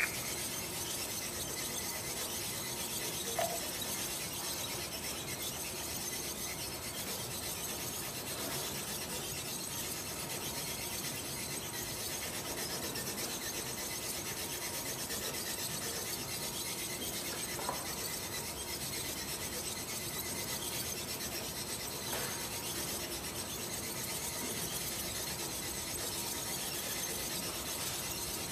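Steady, even background hiss with a sharp click at the very start and a few faint light taps later, as hard gelatin capsules tip out onto a concrete floor and are pushed about by gloved hands.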